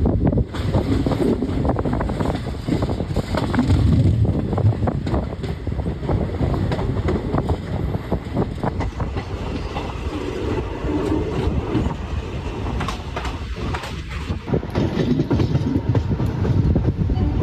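Chennai Egmore–Salem Superfast Express train running at speed: a steady rumble with the wheels clattering over rail joints.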